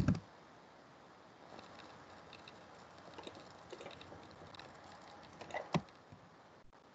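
Quiet room tone with faint, scattered small clicks and ticks, a sharper click at the start and another just before six seconds in.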